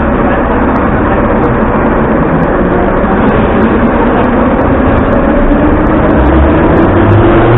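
Moscow Metro train heard from inside the car, a loud steady rumble while it stands and then pulls out of the station. In the second half a motor whine begins to rise slowly in pitch as the train accelerates.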